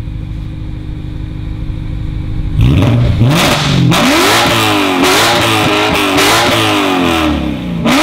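BMW E91 M3's V8 through a Valvetronic valved exhaust with the valves open: idling, then from about two and a half seconds in revved hard several times in quick succession. It is very loud.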